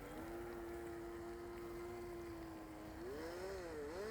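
Faint, steady whine of the battery-powered Revell Tide Breaker RC speedboat's motor; about three seconds in its pitch rises and then dips.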